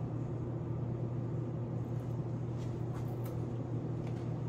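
A steady low hum with a fainter steady tone above it, and a few faint soft clicks about halfway through.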